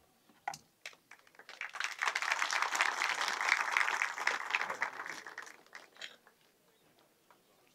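Audience applauding: a few scattered claps, then applause swelling about a second and a half in and dying away about six seconds in.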